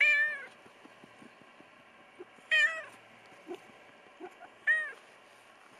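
A tabby-and-white street cat meowing three times, short calls about two seconds apart.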